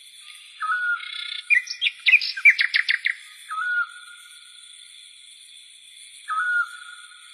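Wild birds calling over a steady, high-pitched insect drone. One short call repeats three times, about three seconds apart, and a quick, loud run of chirps comes just before the middle.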